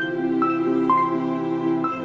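Background music: gentle new-age track with sustained chords under a slow melody of single bell-like notes, a new note about every half second.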